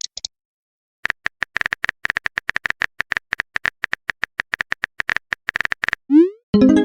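Quick, irregular clicks of a phone keyboard typing sound effect, several a second. Near the end comes a short rising swoop and then a chime, a message-sent or notification sound.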